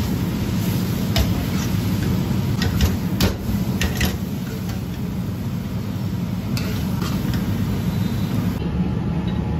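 Noodles and vegetables stir-fried in an iron wok over a high gas flame. A metal ladle scrapes and clanks against the wok several times, most of the clanks coming around three to four seconds in, over the steady rush of the gas burner.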